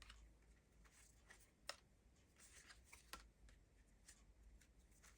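Near silence with faint handling of tarot cards: soft rustling and a few light ticks, two a little clearer, one under two seconds in and another about three seconds in.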